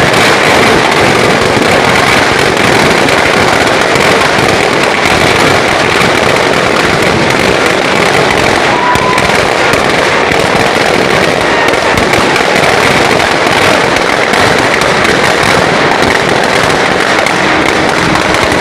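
Firecrackers packed in a burning effigy going off as a dense, unbroken crackle of many small bangs.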